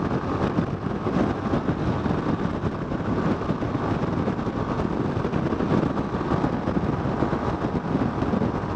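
Yamaha Fazer 250's single-cylinder engine running at steady highway cruising speed, mixed with wind rushing over the microphone, an even, unbroken noise.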